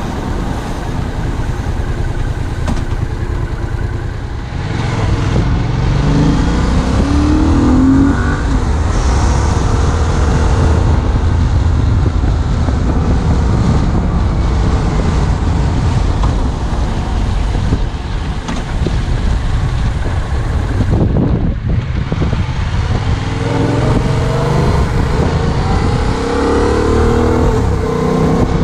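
Yamaha MT-07's two-cylinder 700cc engine running under the rider, its revs rising several times as it pulls through the gears and easing off in between.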